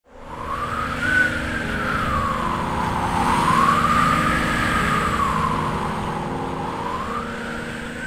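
A siren wailing, its pitch slowly rising and falling about every three seconds, over a low, steady rumble.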